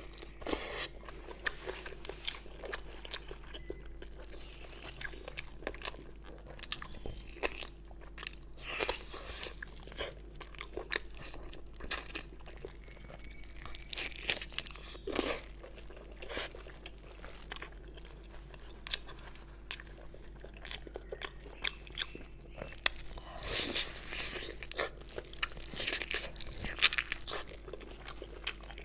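Close-up eating sounds of a person biting and chewing braised pork knuckle skin and meat: a steady run of short wet clicks and smacks, thickening into busier chewing about halfway and again near the end.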